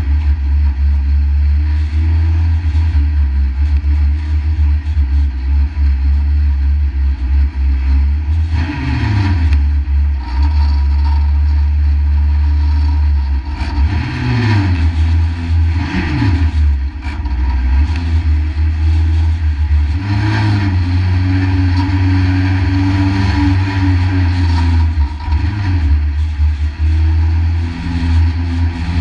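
A junior 1-litre stock car's engine running hard under racing load, heard from inside its stripped cabin, its pitch dipping and climbing again several times.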